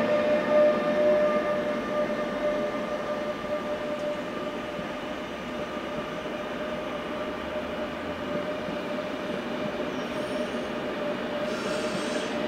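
ÖBB railjet passenger train rolling slowly with a steady, high-pitched squeal from its wheels on the rails, over the rumble of the moving train.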